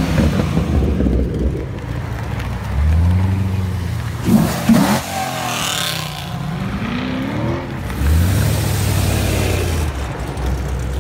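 Muscle cars driving past one after another, their engines rumbling and revving as each pulls away, with the loudest rev about halfway through.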